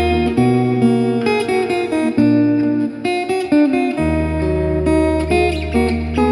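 Background music: acoustic guitar, plucked and strummed, over long-held low bass notes.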